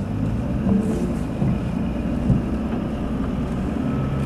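Steady hum of a four-wheel-drive vehicle's engine and drivetrain, heard from inside the cab while it drives slowly through deep snow.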